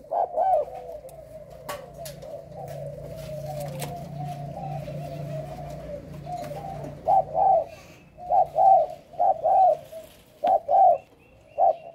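Spotted dove cooing: a soft, wavering rolling murmur for the first several seconds, then loud coos in quick pairs from about seven seconds on.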